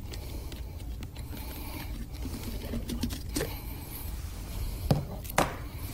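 A few light clicks and knocks as the plastic lid of a countertop blender is worked loose and lifted off the glass jug, the sharpest knocks about five seconds in.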